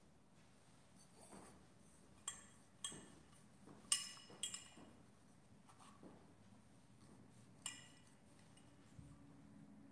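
Metal communion vessels (chalice, paten and ciborium) clinking as they are handled and set down on the altar during the purification after communion: several sharp clinks with a short ringing tail, the loudest about four seconds in.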